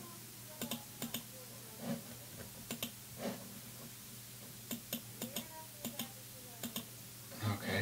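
Scattered clicks from a computer mouse and keyboard, about a dozen irregular taps, some close together in pairs.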